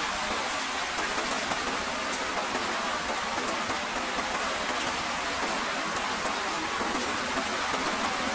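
Steady rain: a constant hiss dotted with many small, sharp drop ticks.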